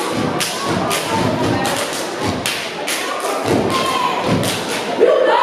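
Step team stepping in unison: a fast rhythm of sharp stomps and hand claps, about three strikes a second, ringing in a large hall.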